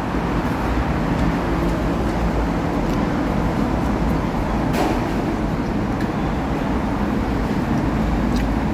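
Steady road traffic noise from passing cars, with one brief click about five seconds in.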